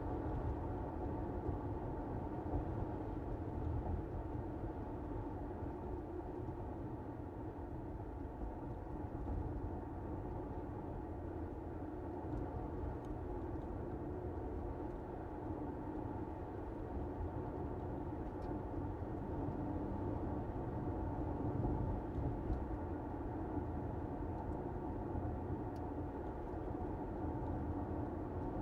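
A car driving along a road: steady, low tyre and road rumble with little high-pitched content.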